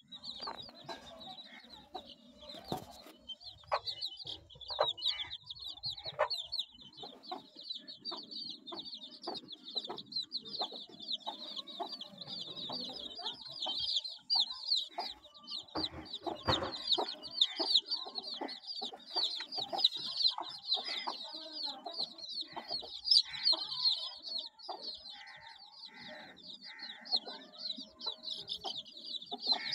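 A brood of young domestic chicks peeping without pause in rapid, high cheeps, with the mother hen clucking low at intervals.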